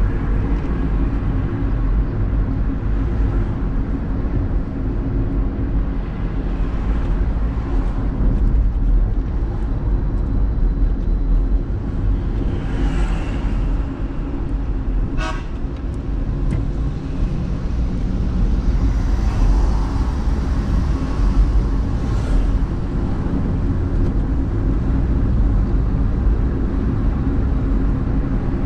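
Steady road and engine rumble of a car driving through city traffic, heard from inside the car. About halfway through, a car horn gives one short toot.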